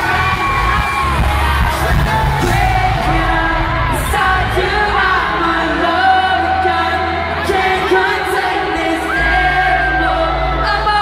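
Live pop band in an arena: a male lead vocal sung into a microphone over the band, with fans yelling along, picked up by a phone's microphone. The low bass drops away for a few seconds midway and comes back near the end.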